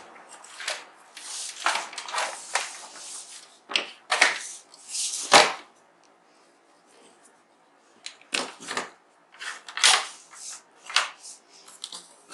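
Irregular clicks, clatter and scraping of a Korg Pa50 keyboard's opened casing and parts being handled during reassembly, with a sharper knock about five seconds in and a pause of about two seconds in the middle.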